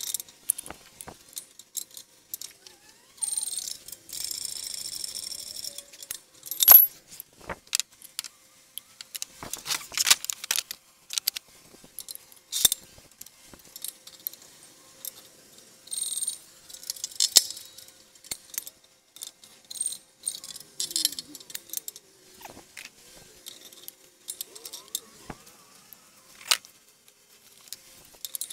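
Hand tools and metal suspension parts clinking and rattling: scattered sharp clicks and a few short rattling bursts, the first about three seconds in.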